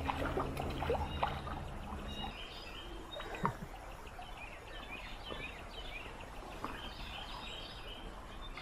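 Stream water sloshing and gurgling close by, with small birds chirping throughout. A low steady hum fades out about two seconds in.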